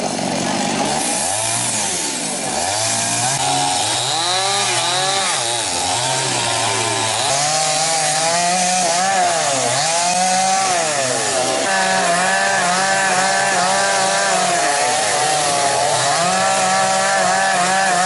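Petrol chainsaws cutting fallen tree trunks and branches. The engines rev up and drop back again and again as the saws bite and ease off. From about two-thirds of the way in, a saw holds a steadier high rev through a long cut.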